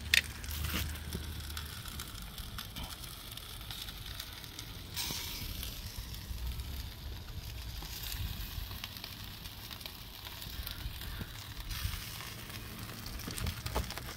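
Chicken drumsticks sizzling and crackling on the open grate of a barbecue smoker, with scattered small pops.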